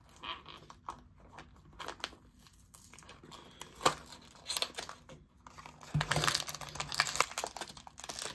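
Hands opening a Smiski blind box: the small cardboard box is torn open and the foil packet inside crinkles and tears in irregular crackles. The crinkling is densest about six seconds in.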